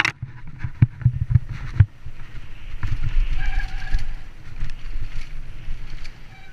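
Helmet-camera sound of a Santa Cruz mountain bike descending a dry dirt trail at speed: continuous rush of wind and tyres on dirt, with sharp knocks and rattles from the bike over bumps in the first two seconds and a short high squeal about three seconds in.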